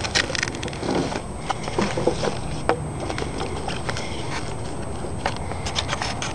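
Nylon fabric and webbing straps of a scuba buoyancy compensator vest being handled, rustling with scattered clicks and taps.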